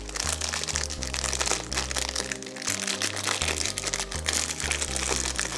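Clear plastic packaging bag crinkling in rapid crackles as hands unwrap it, over background music with a stepping bass line.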